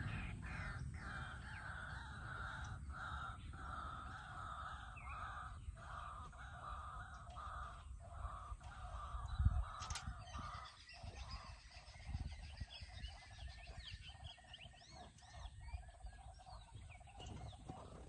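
Birds calling in forest ambience, with higher chirps and trills, over a low rumble that swells about nine and a half seconds in. A single sharp click comes about ten seconds in.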